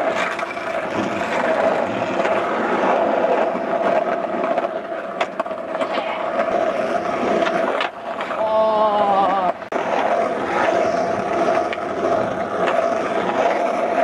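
Skateboard wheels rolling on pavement, with a few sharp clacks of the board. A short wavering pitched sound comes a little past halfway.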